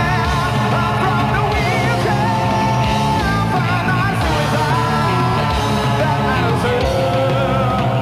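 Live rock band with several voices singing long, wavering harmony lines over electric guitar, keyboards and a steady low bass part.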